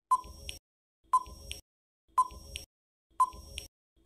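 Countdown-timer sound effect: a short electronic beep about once a second, each a quick ping that dies away, followed by a fainter tick.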